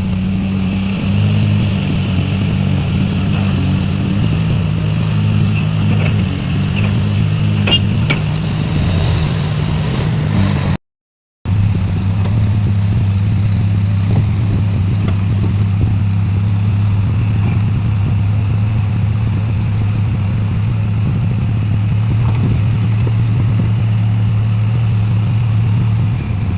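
Heavy mining machine's diesel engine running steadily with a low, even hum. The sound cuts out completely for about half a second about eleven seconds in.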